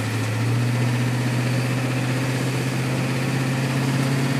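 1989 Ford E-350's 7.3-litre IDI V8 diesel engine running as the van drives off, heard from inside the cab. Its steady drone steps up slightly in pitch and gets a little louder about half a second in, then holds.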